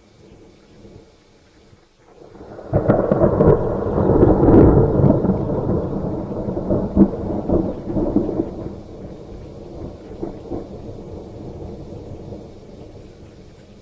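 Thunder: a sudden crack about two and a half seconds in, then a crackling rumble that stays loud for a few seconds and slowly dies away.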